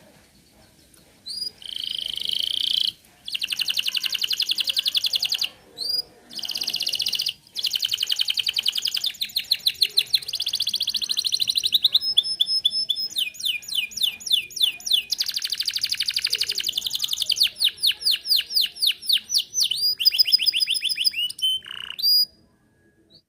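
Domestic canary singing a long run of fast trills, switching from one rapidly repeated note to another every second or few, with brief pauses between phrases. The song stops shortly before the end.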